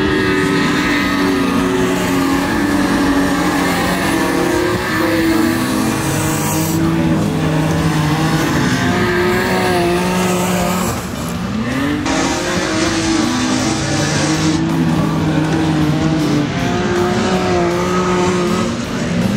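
Several stock-car engines racing on a dirt track, revving hard and dropping back again and again as the cars accelerate and lift off, their pitches rising and falling over one another.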